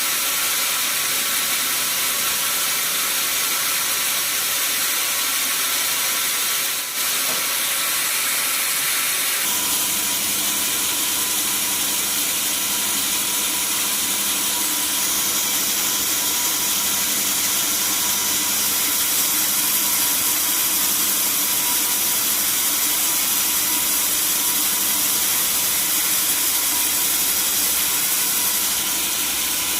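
Sawmill saw machinery running steadily, a continuous high hiss with a mechanical whine, shifting in tone about nine seconds in.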